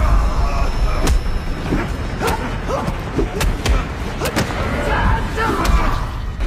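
Movie fight sound effects: a string of sharp punch and strike impacts through the first half, with short grunts of effort between the blows, over a heavy low rumble.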